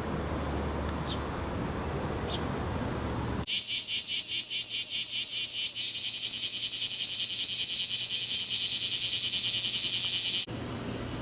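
Male bear cicadas (kumazemi, Cryptotympana facialis) singing: a loud, rapidly pulsing high buzz that starts suddenly about three seconds in and stops sharply near the end. It is the male's calling song, which only males make. Before it there is a low steady hum with a few short high chirps.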